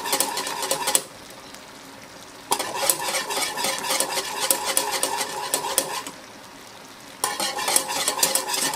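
Wire balloon whisk beating sugar syrup and custard filling flour in a metal saucepan: rapid clicking and scraping of the wires against the pan. The whisking comes in three stretches, with two short pauses, about a second in and about six seconds in. The constant stirring keeps the flour from lumping as it cooks into a clear glaze.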